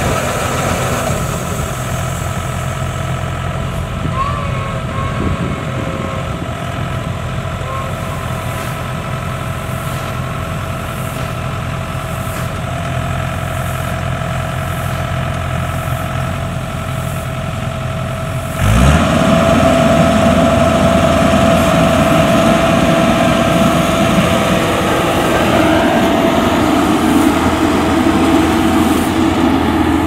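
Yanmar AW70GV combine harvester's diesel engine running steadily at a low speed, then revved up sharply about two-thirds of the way through and running on louder with a steady whine.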